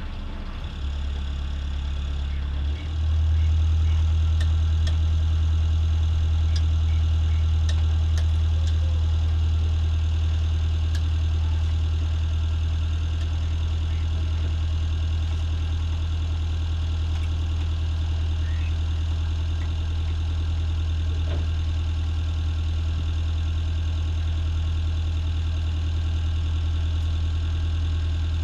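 Motor cruiser's engine running at low speed, a steady low drone. It steps up in level about a second in and again about three seconds in, as the throttle is opened a little, then runs evenly.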